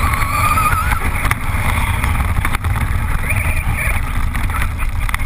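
Brushless electric motor of a Traxxas Rustler VXL RC truck whining as it drives, its pitch rising in the first second and again around three seconds in. Under it is a heavy wind rumble on the truck's onboard microphone, and gravel ticks against the truck.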